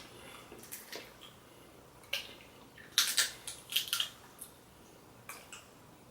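Dungeness crab shell being cracked and picked apart by hand: a series of sharp cracks and short wet clicks, busiest around three to four seconds in.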